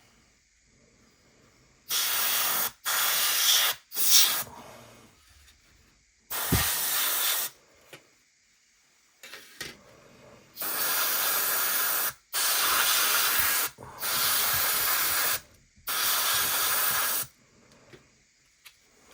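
Paint being sprayed in short bursts of hiss onto model kit parts, about eight bursts of a second or so each with brief pauses between them.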